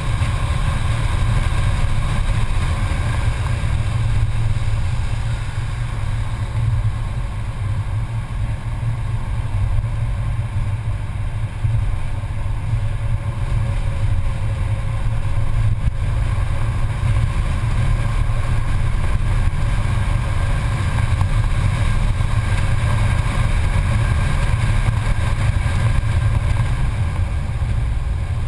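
Mercedes-Benz C280 heard from inside the cabin at track speed: the engine runs steadily under load over a heavy, steady low rumble of wind and road noise.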